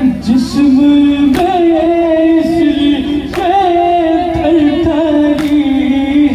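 A noha, a Muharram lament, sung as one long wavering melody over a loudspeaker system. A sharp slap lands about every two seconds, the beat of mourners striking their chests together in matam.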